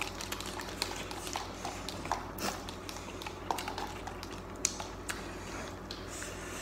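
Eating sounds from cup noodles: a small utensil tapping and scraping in a paper noodle cup, with scattered soft clicks of chewing, over a steady low hum.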